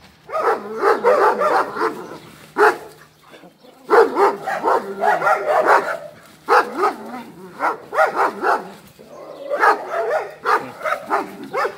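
Dogs barking at each other in rough play, in repeated bursts of barks.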